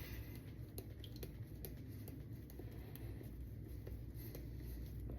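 Faint squishing and light ticking of a shaving brush being worked through a thick, overloaded soap paste in a lathering bowl, with the paste not yet broken down into lather.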